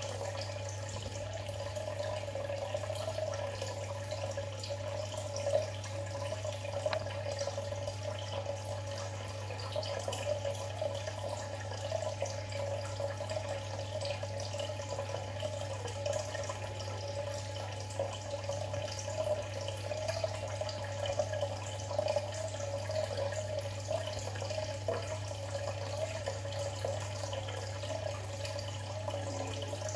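Steady trickling and bubbling of aquarium water over a constant low hum, with occasional small drips and ticks.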